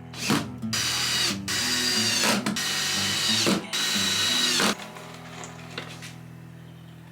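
Power drill running in four short bursts, each winding down in pitch as the trigger is released, over background music.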